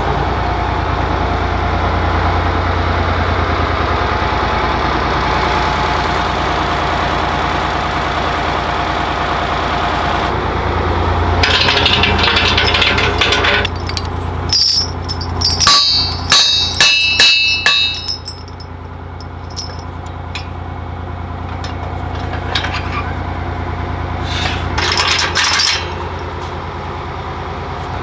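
An engine runs steadily. From about halfway it is joined by a quick string of sharp metal knocks and ringing clinks, with a few more clinks near the end, as steel cultivator tines and shovels are struck and handled.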